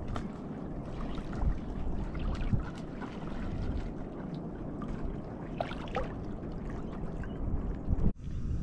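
Small wind-driven waves lapping and gurgling against the shore, with a low wind rumble on the microphone; the sound cuts off abruptly near the end.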